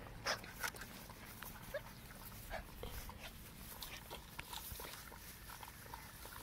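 German Shepherd puppies scuffling together, giving short soft whimpers and grunts among scattered clicks and knocks, the sharpest two just after the start.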